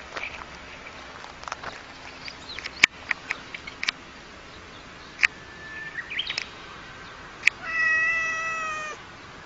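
A cat meowing: one long, drawn-out meow near the end, after a scattering of short clicks and taps.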